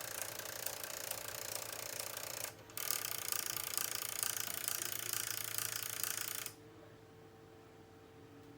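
Sony MDS-JE510 MiniDisc deck's loading mechanism grinding and ratcheting its gears in two runs, one broken off about two and a half seconds in and one stopping about six and a half seconds in. This is the deck's fault on power-up: it seems the carriage does not detect its end-of-travel switch and keeps trying to eject the disc.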